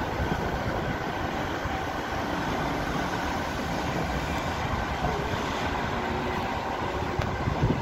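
Dortmund Stadtbahn light-rail car running on its track with steady rolling noise, drawing away, mixed with road traffic.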